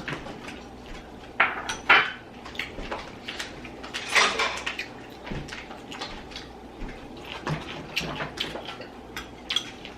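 Cutlery and dishes clinking at a table during a meal: irregular scrapes and clinks, the loudest a couple of seconds in and about four seconds in.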